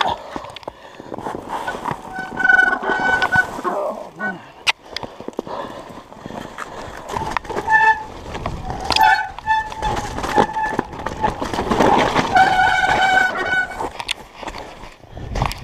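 Mountain bike riding down a snowy trail: tyres running through snow and the bike rattling over bumps, with the brakes squealing in several short bursts at one steady high pitch.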